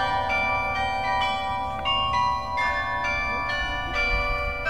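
Carillon of 49 bronze tower bells being tuned: single notes struck one after another, each left ringing on over the next.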